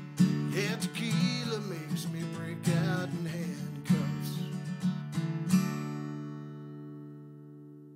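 Acoustic guitar strumming the song's closing bars, ending on a final chord about five and a half seconds in that rings on and slowly fades away.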